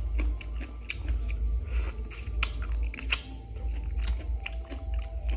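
Close-up chewing of crunchy green papaya salad: irregular crisp crunches and wet mouth clicks, over a steady low hum.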